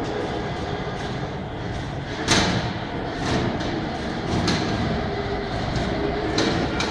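Small automated transport cart running along a tunnel floor as it approaches and passes: a steady low rumble broken by sharp clicks and knocks every second or so, the loudest about two seconds in.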